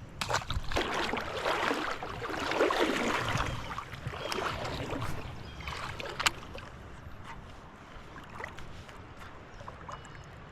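Splashing and scuffling as a small shoal bass is unhooked beside a fishing kayak, busiest for the first five seconds, with one sharp click about six seconds in; afterwards only a faint steady water hiss.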